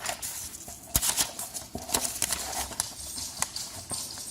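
A dull Chef Mate kitchen knife dragged against a sheet of paper, the paper crinkling and tearing in irregular scrapes and clicks instead of being sliced cleanly: the blunt edge is just tearing the paper.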